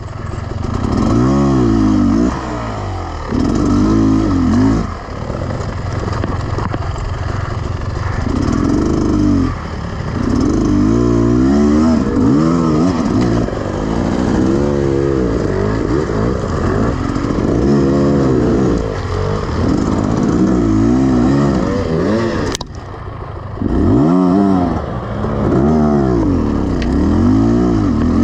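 Beta Xtrainer 300 two-stroke single-cylinder enduro motorcycle engine under repeated bursts of throttle, its pitch rising and falling every second or two as it works up a rough mule track. There is a sharp click about 22 seconds in, followed by a brief dip in engine sound.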